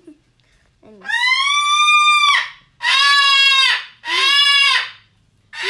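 Pet parrot screaming: loud, long, shrill calls, three in a row each about a second long, with a fourth starting near the end.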